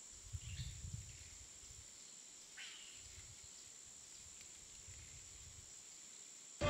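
Faint night ambience: a steady high-pitched drone, with two faint short calls, one about half a second in and a falling one a couple of seconds later.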